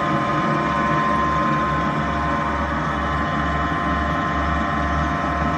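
30-horsepower vertical electric motor driving a 6-inch tubewell turbine pump, running steadily with a hum and a constant whine, over a low throb that pulses at a regular beat.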